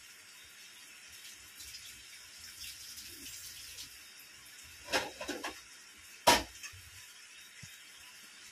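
A tap running briefly, then a short clatter of dishes about five seconds in and one loud, sharp clank just after.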